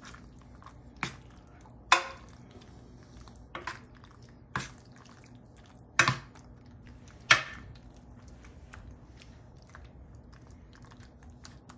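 A metal spoon stirring baked ziti in a metal casserole pan: soft squishing of pasta, sauce and ricotta, with about six sharp knocks of the spoon against the pan in the first seven seconds, then only quieter stirring.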